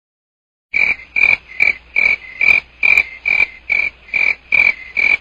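A sound effect of rhythmic croaking calls, about two and a half a second, starting just under a second in.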